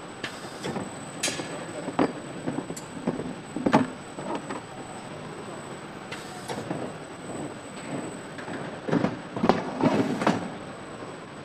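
Plastic parts trays holding painted motorcycle tank covers knocking and clattering as they are handled on a roller conveyor and pushed into a metal rack, over a steady factory hum. Three short hisses come near the start, about six seconds in and near the end.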